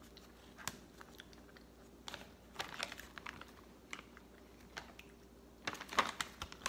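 Plastic food packaging crinkling and crackling as it is handled, in scattered short clicks, loudest about six seconds in.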